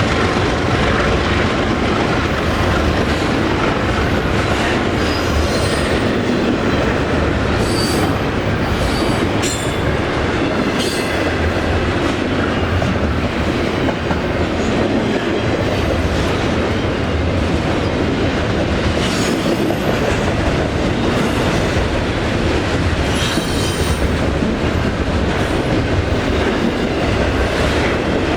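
A train rolling steadily past, its steel wheels running over the rails, with brief high wheel squeals now and then.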